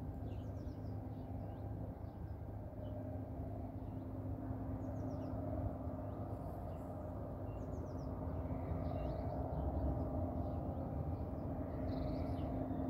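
Steady low rumble of distant jet engines from the airport, swelling slightly in the second half, with small birds chirping intermittently over it.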